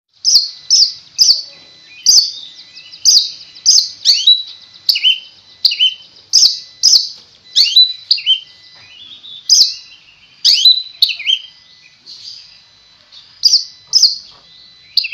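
Oriental magpie-robin (kacer) singing in a rapid series of loud, sharp, high-pitched phrases, about one or two a second, many sweeping downward in pitch. There is a short lull about three-quarters of the way through.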